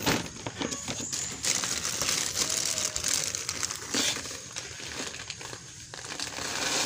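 A woven plastic fertilizer sack and its thin plastic liner crinkling and rustling as they are pulled open and a hand digs in and scoops up granules, with a sharp crackle at the very start.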